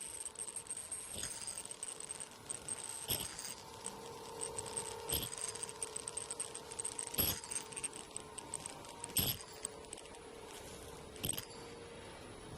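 Crosscut and handle sewing machine running: a steady machine whine with a sharp metallic clack about every two seconds.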